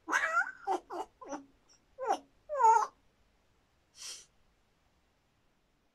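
African grey parrot vocalising: a run of short pitched calls whose pitch glides up and down over about three seconds, then one short breathy hiss about four seconds in.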